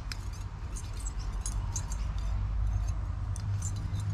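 Shimano spinning reel being cranked to wind fishing line onto its spool from a line winder: irregular light ticks and clicks over a steady low hum.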